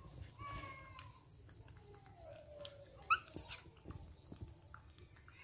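Baby macaques calling: a short falling coo, then a lower, drawn-out whimper. About three seconds in come two sharp, high-pitched squeals, the loudest sound.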